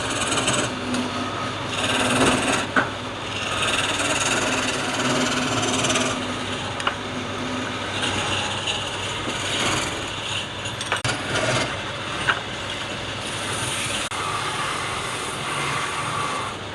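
Wood lathe running while a turning tool cuts into the spinning wood: a steady scraping hiss, with a few sharp clicks.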